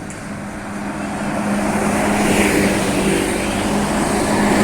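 Large bus driving past, its engine drone and road noise growing steadily louder as it approaches, with a steady low hum throughout.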